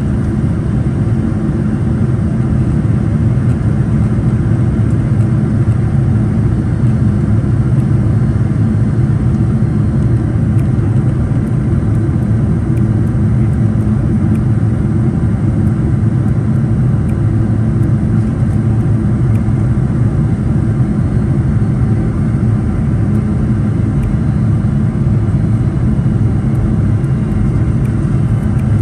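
Boeing 747-400 engines and airflow making a steady low rumble on approach, holding even with no change in pitch or level.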